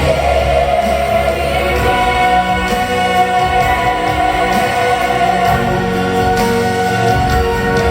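A vocal ensemble singing in harmony over instrumental accompaniment, holding long sustained notes.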